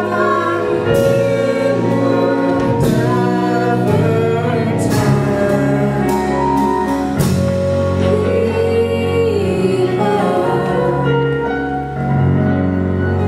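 Singing with instrumental accompaniment from a live stage musical: long held notes over sustained bass tones.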